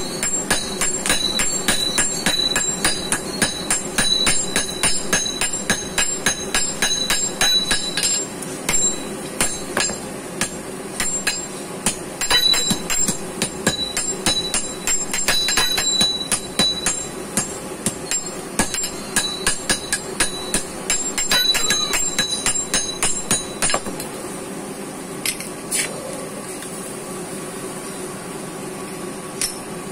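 Hammer beating red-hot iron held in tongs on a steel anvil: rapid blows, several a second, each with a metallic ring, in runs with short pauses. The hammering stops about three-quarters of the way through, leaving only a couple of single strikes.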